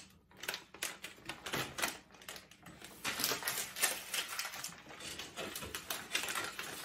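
Crinkling and rustling of a food pouch being handled and torn open: a rapid, uneven run of small crackles that gets busier about three seconds in.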